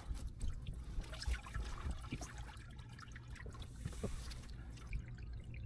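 Water trickling and dripping in small irregular splashes, with a short stronger rush of water about four seconds in, as warm water is worked onto a frozen drain P-trap to thaw the ice inside.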